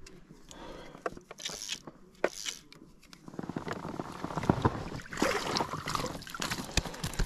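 Water splashing as a bull trout is scooped into a rubber landing net at the surface and lifted out. There are two short splashes early, then a busier spell of splashing and dripping from about three seconds in.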